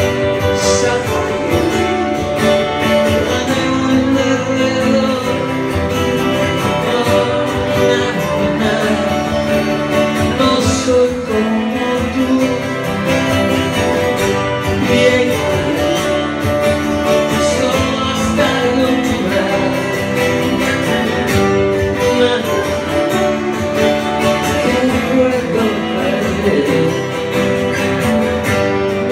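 Live band music over a PA: strummed guitars playing a steady pop-rock song between sung lines, loud and continuous.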